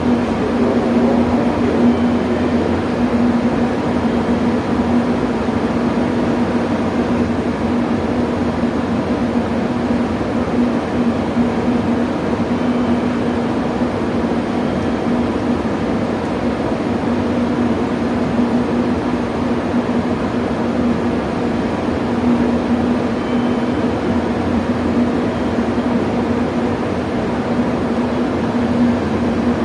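JR Kyushu 883 series electric train standing at the platform with its onboard equipment running: a steady hum with one held tone.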